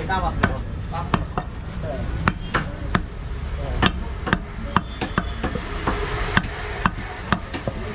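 Heavy butcher's cleaver chopping beef on a wooden log chopping block: repeated sharp thwacks, about two strikes a second, in an uneven rhythm.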